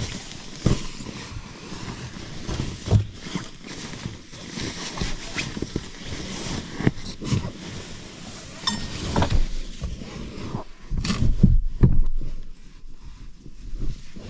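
Red envelope-shaped sleeping bag being lifted, turned over and folded, its fabric rustling and swishing, with scattered soft thumps and knocks that are loudest about eleven to twelve seconds in.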